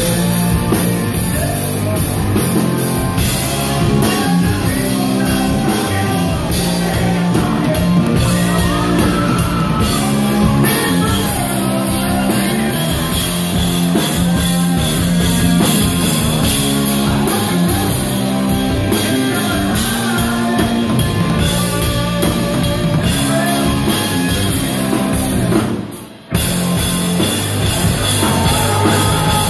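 Live rock band playing loud, with a singer, drum kit and electric guitar. The music drops out for a moment near the end and comes straight back in.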